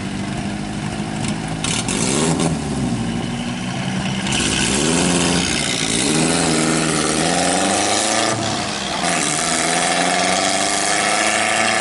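The engines of a 1924 Fiat 501 and a 1926 Fiat 509 SM revving up and down several times, then pulling away together under acceleration. The sound gets louder from about four seconds in.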